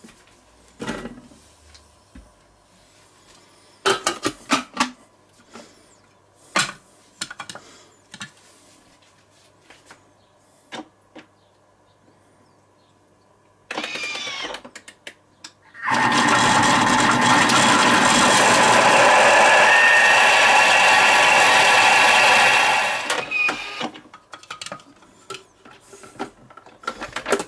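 Thermomix kitchen machine blending chunks of yellow zucchini into a purée: the motor winds up with a rising whine, runs loud and even for about seven seconds, then spins down. Short knocks and clatter come before and after as the bowl and lid are handled.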